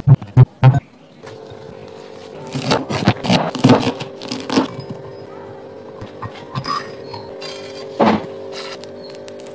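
Boiled potatoes dropped one after another into a glass bowl, four quick thuds. Then a knife chopping green chillies on a cutting board in a run of sharp chops, and later a steel spoon knocking once against a pan as spices go into the oil, over a steady low hum.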